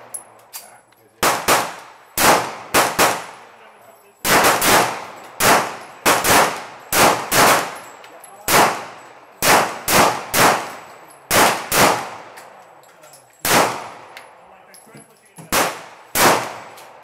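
9mm Glock pistol fired as a string of about twenty shots at uneven spacing, some in quick doubles, each with a short echo tail.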